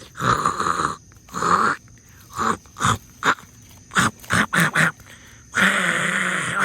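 Chimpanzee-style breathy grunts and pants: a run of short rasping bursts, then one longer breathy call near the end.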